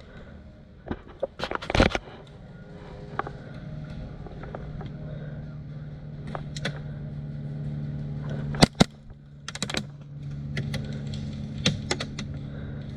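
Airsoft guns firing: a quick burst of sharp clicks, then single and paired shots, over a steady low hum.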